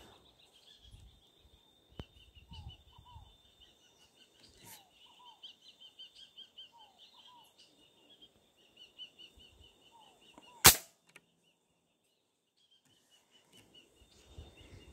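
Birds calling in the scrub: a high steady trill and repeated short falling chirps. About ten seconds in, a single sharp, loud rifle shot is fired.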